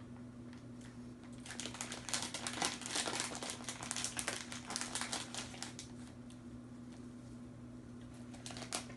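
Plastic snack wrapper crinkling as it is handled, in a dense run of crackles for several seconds and a shorter bout near the end, over a steady low electrical hum.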